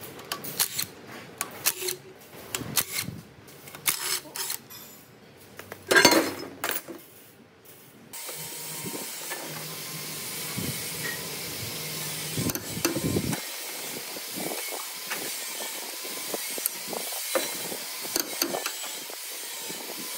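Metal parts being handled and knocked: scattered clicks and knocks, with one loud clank about six seconds in. About eight seconds in, a steady spraying hiss starts suddenly and keeps on, with light clinks over it.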